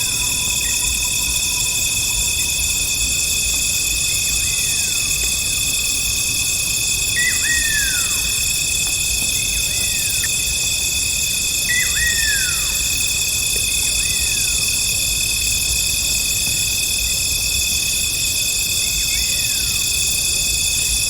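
Night jungle ambience: a steady chorus of crickets and other insects holding several high, even tones. Over it, about eight short calls each slide downward in pitch, scattered every few seconds.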